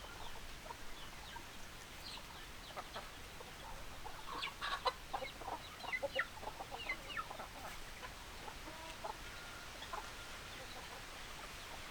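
Hens clucking: many short, scattered clucks, busiest in the middle, over a faint steady background hiss.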